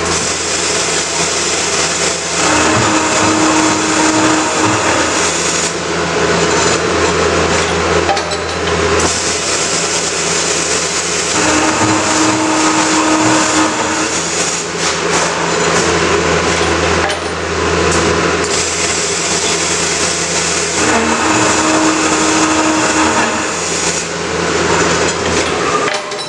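Scotchman CPO 315 HFA-CNC automatic cold saw running at 130 RPM blade speed, cutting three 4-inch pieces from 1-inch stock. A steady motor hum runs under three repeated cut-and-advance cycles, about nine seconds apart.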